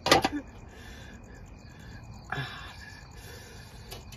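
Aluminium steamer basket clanking with a brief metallic ring as it is set down, then faint steady insect chirping with a short rustle about two seconds in and a click near the end.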